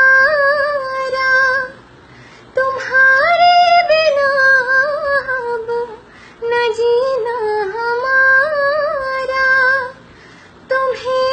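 A woman singing unaccompanied, holding long notes with a wavering pitch. Her phrases are broken by short breaths about every three to four seconds.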